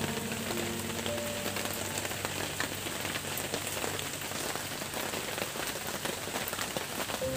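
Steady rain falling: an even hiss of many small drops that does not let up.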